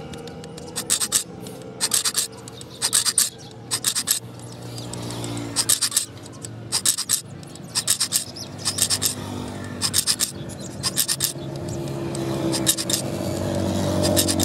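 Steel cutting tool drawn hard across the edge of a sickle blade on an anvil, cutting its serrated teeth: short rasping scrapes in quick pairs and threes, about once a second.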